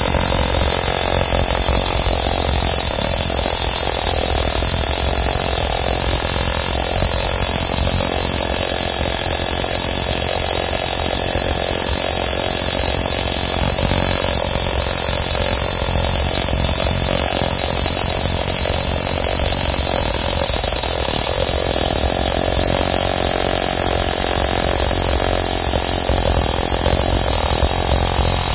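Tesla coil running continuously, its small streamers off the topload making a loud, steady, unbroken buzzing hiss, a test run after retuning the primary coil.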